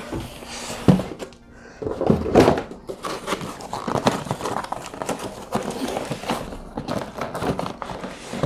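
Background music over knocks, thumps and rustling as a cardboard shipping box is handled and opened, with the loudest thumps about one and two seconds in.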